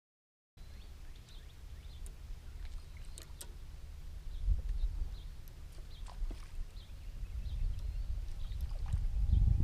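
Kayak out on the water: a steady low rumble of water and wind against the hull and microphone that grows louder toward the end, with faint scattered high ticks.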